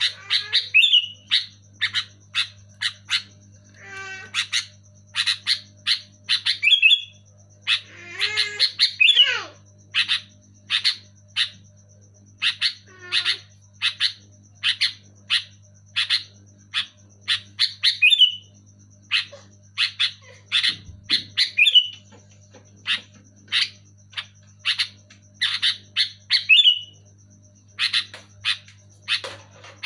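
Sooty-headed bulbul (kutilang) calling loudly and continuously: a fast series of short, sharp notes about two to three a second, with a few longer warbling phrases mixed in. A faint steady low hum runs underneath.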